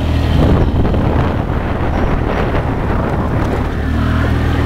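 Four-wheeler (ATV) engine running steadily while riding, with wind buffeting the microphone.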